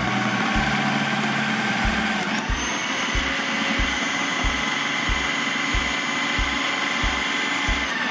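Philips HR7310 700 W food processor running steadily, its blade chopping a bowl of vegetables. A higher whine joins the motor's sound about two and a half seconds in.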